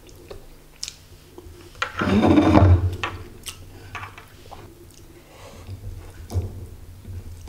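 Close-up chewing of a mouthful of fried tempeh and rice, with soft wet mouth sounds and scattered small clicks. There is a louder, longer burst of sound about two seconds in.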